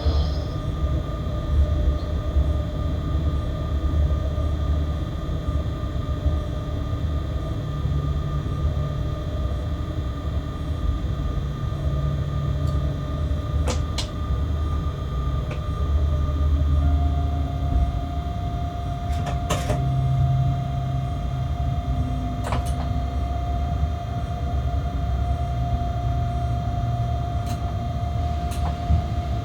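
Freight locomotive cab interior: a steady low running rumble with electrical hum. A steady whine sets in a little past halfway, and a few sharp clicks come at scattered moments.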